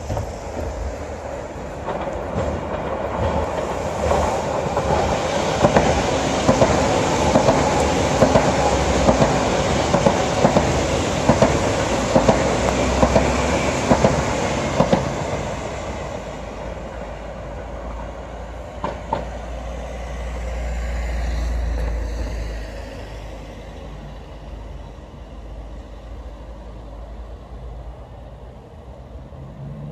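Electric commuter train passing close by: a loud rush of wheel-on-rail noise with repeated clacks over the rail joints, strongest in the first half, then fading as it moves off. A low rumble swells and dies away about two-thirds of the way through.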